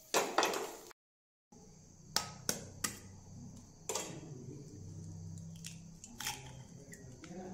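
Raw egg tapped against the rim of a stainless-steel bowl to crack its shell: three sharp taps about a third of a second apart, then a few more scattered taps and cracks as the shell is broken open. Before that, a steel spatula scrapes briefly in a pan, and the sound drops out for a moment at an edit.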